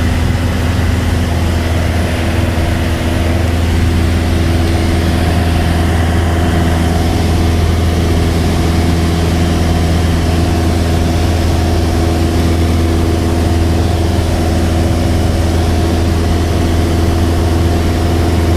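Single-engine light aircraft's piston engine and propeller running steadily in cruising flight, heard inside the cockpit as a loud, even low hum with steady tones above it and a wash of air noise. It grows slightly louder about four seconds in.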